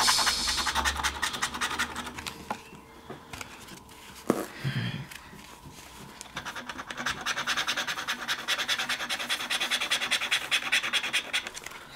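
A scratch-off lottery ticket being scratched, with quick repeated scraping strokes across its coating. The scratching is quieter for a few seconds in the middle and picks up again at about six seconds.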